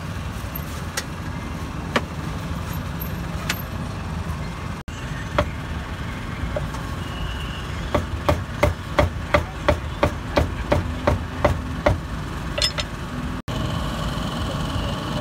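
Cleaver chopping meat: a few single chops, then a steady run of about a dozen chops at roughly three a second, over a low rumble of street engines.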